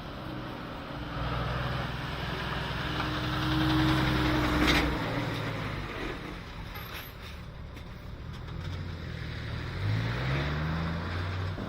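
Motor vehicle engines running, with a sharp knock about halfway through and one engine revving up in pitch near the end.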